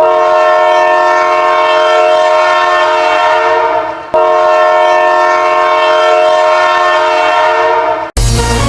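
Ice hockey goal horn sounding two long blasts of about four seconds each, each a loud, steady chord of several tones. Just before the end, electronic goal-song music cuts in.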